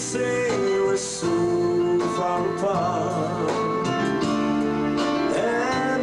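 Male vocalist singing into a microphone over instrumental accompaniment, holding notes with a wavering vibrato about halfway through.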